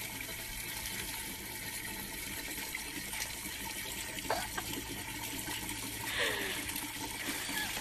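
Steady rushing noise like running or splashing water, with a brief squeak about four seconds in and a short falling whine about six seconds in.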